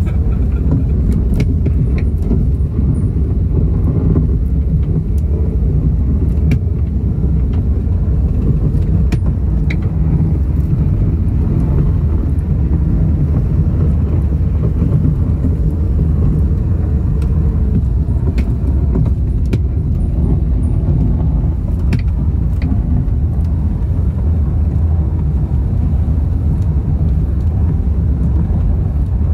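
A snowmobile towing a sleigh along a packed snow trail: a steady, loud, low rumble of the engine and the runners on the snow, with scattered small clicks and rattles.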